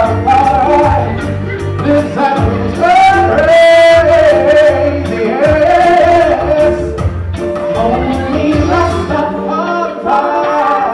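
A man singing into a handheld microphone through a PA, his voice gliding and holding notes, with music and a steady low bass under it.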